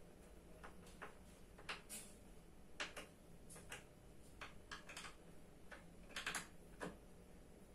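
Faint, irregular sharp clicks, about a dozen, from hands working a small metal object.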